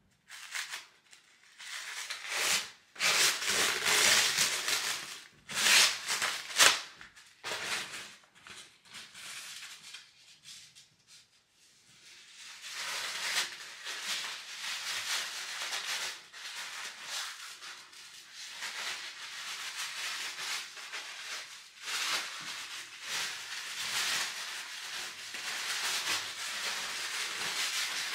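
Rustling and rubbing of hair wrap strips and hands working the hair at the back of the head, in loud irregular bursts early on, then steadier rustling after a brief lull.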